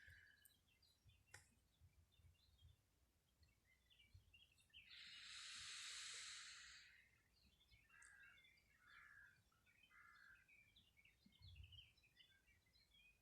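Faint outdoor ambience with scattered birds chirping. Near the middle a soft rushing sound swells up and fades away over about two seconds.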